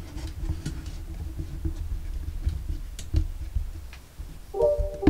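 Low steady rumble with scattered light clicks and ticks. Electronic music begins near the end.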